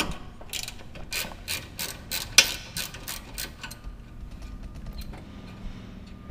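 Hand ratchet clicking as a socket loosens the sway bar end link nut on the front strut, about three strokes a second, giving way to fainter, quicker ticks in the last couple of seconds.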